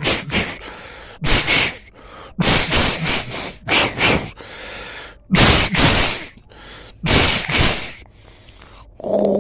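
A series of about seven short, breathy hissing bursts, each lasting under a second, with brief quiet gaps between them.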